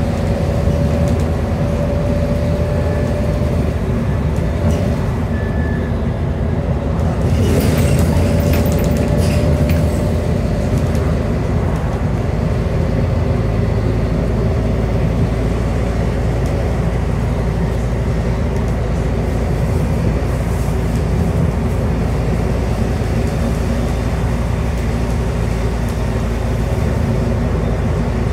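Scania N230UD double-decker bus on the move, heard from inside the passenger saloon: its Scania DC09 9.0-litre five-cylinder diesel and ZF Ecomat automatic drivetrain running as a steady drone with road noise. A steady whine fades about seven seconds in, and a brief louder rush passes between about seven and ten seconds in.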